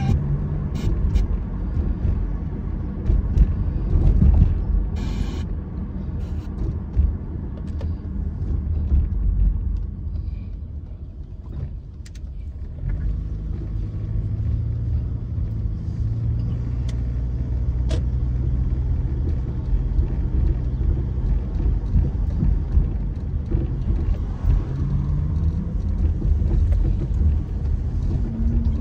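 Car cabin noise while driving: a steady low rumble of engine and road noise, quieting briefly about halfway through, followed by a steady low engine note for several seconds.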